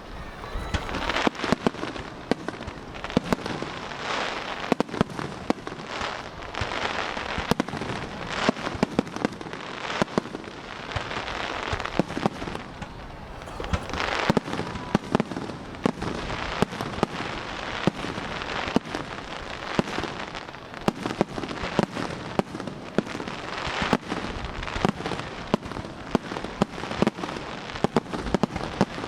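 Aerial fireworks bursting in rapid succession: many sharp bangs, some overlapping, over a continuous dense crackling of crackle-effect shells.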